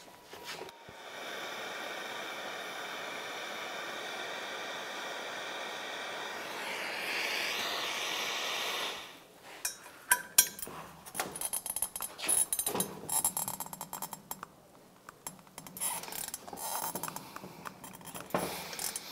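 TIG welding arc buzzing steadily for about nine seconds while a nut is tack-welded onto a broken, corroded exhaust stud. The buzz swells near the end and cuts off. It is followed by scattered metallic clicks and taps as a ratchet and socket work the welded nut.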